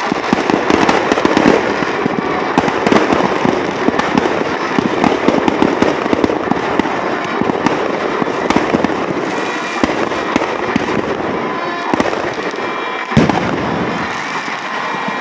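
Firecrackers and fireworks going off in a dense, rapid crackle of pops as a Ravana effigy burns, with a few louder single bangs in the second half.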